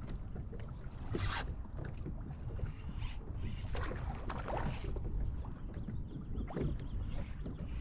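Choppy river water lapping and splashing against a plastic kayak hull in short irregular slaps, over a steady low rumble.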